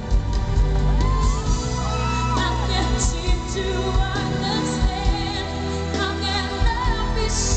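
Live pop music: a female singer singing through a microphone over a live band, heard through an arena sound system.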